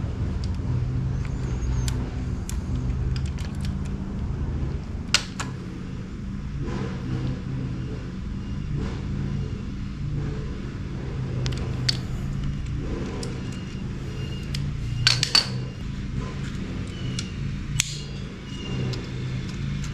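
Metal parts and hand tools clicking and clinking now and then during work on a motorcycle's clutch and gear-shift mechanism, with a quick run of clicks about three quarters of the way through, over a steady low hum.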